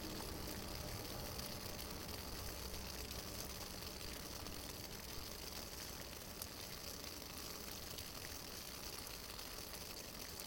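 Fancee Feest alcohol stove burning Iso91 isopropyl alcohol under a Foster's-can pot of boiling water: a steady, faint hiss with light sizzling and a few faint ticks.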